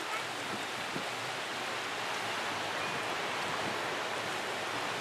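Steady rushing of wind and choppy sea water, an even noise with no distinct events.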